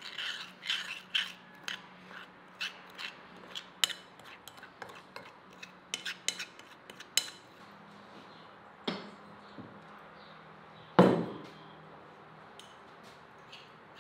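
Metal spoon clinking and scraping against a porcelain bowl as a thick marinade is stirred, a quick run of clinks that thins out after about seven seconds. About eleven seconds in comes one heavy knock, the loudest sound.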